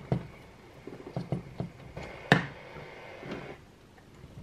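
Light clicks and knocks from hands handling a small aluminium-chassis vacuum-tube transmitter on a bench, with one sharper knock about two seconds in.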